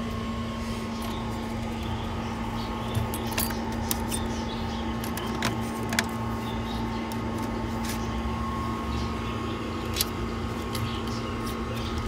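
Steady mechanical hum with a low rumble, like an air-conditioning unit or fan running, broken by a few sharp clicks about 3.5, 6 and 10 seconds in.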